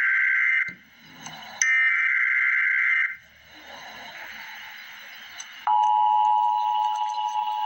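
Emergency Alert System tones. The SAME digital header is sent as short bursts of high warbling data: one ends about half a second in and another runs from about one and a half to three seconds. After a pause, the steady two-tone attention signal starts about six seconds in.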